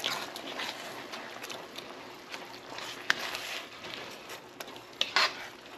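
A spoon stirring kidney beans in hot tomato sauce in a nonstick skillet: a steady sizzling hiss with scattered scrapes and taps of the spoon against the pan, a couple of them louder about three and five seconds in.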